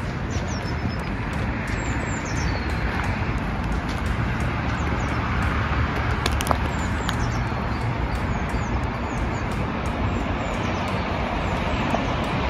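Steady hum of car traffic on the road below, with a few high, short chirps from small birds.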